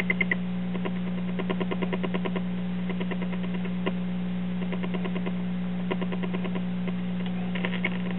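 Early-1940s Truetone tube radio's speaker giving a steady low filter hum, broken by short runs of rapid chirping ticks, about ten a second, that come and go several times. The chirping is an interference the owner cannot account for; the hum is residual power-supply filter hum.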